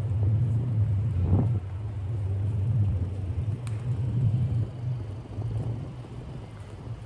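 City street ambience: a low, wavering rumble, with a faint tick about halfway through.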